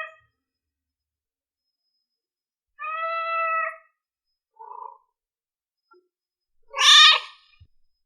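Newborn kitten meowing in separate high-pitched cries: the end of one call at the start, a call of about a second about three seconds in, a short faint one near five seconds, and a louder, higher cry about seven seconds in.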